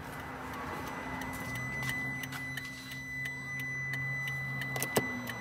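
Hazard-light flasher of a 2005 Toyota Prius ticking steadily, about two ticks a second, over a steady high electronic tone and a low hum. A sharper click comes near the end.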